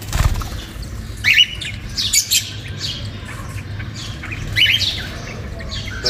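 Small pet parrots in a mixed aviary chirping in short bursts, a few clusters of quick high calls. A brief low rumble comes right at the start.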